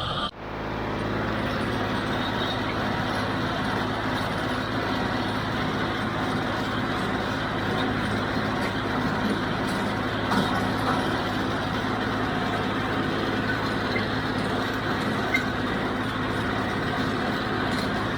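John Deere 5055D three-cylinder diesel tractor running steadily under load while pulling a John Deere 348 square baler through a windrow.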